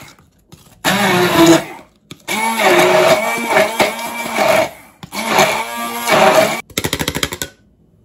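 Handheld immersion blender pureeing onion in a tall plastic beaker, run in three bursts of a few seconds each, its motor pitch dipping and recovering as it works. Near the end it gives a quick stutter of rapid pulses, then stops.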